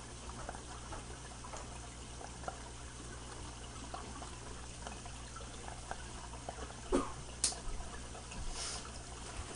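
Aquarium filter water trickling steadily under a low hum, with a thump and a sharp click about seven seconds in.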